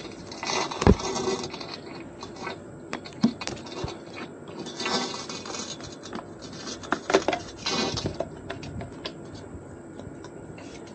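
Rustling and sharp clicks of hands handling equipment and cabling. The rustling comes in three spells, about a second in, about five seconds in and about eight seconds in, and the loudest click is about a second in.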